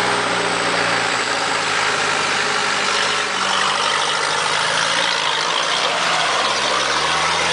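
Engine of a UMM off-road 4x4 running at low revs while the vehicle crawls slowly over rocks, its note rising and falling a little with the throttle.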